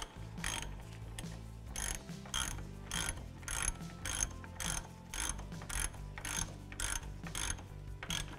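Hand ratchet with an 18 mm socket clicking in short back-strokes, about two to three a second, as it snugs down the brake caliper bolts on a truck's front wheel.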